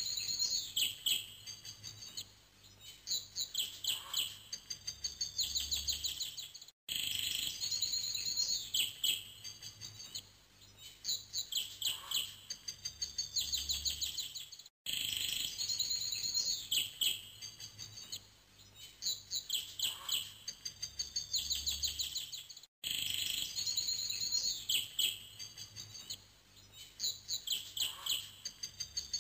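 A looped recording of birdsong, bright chirps and trills. The same stretch of about eight seconds repeats over and over, with a brief gap at each joint.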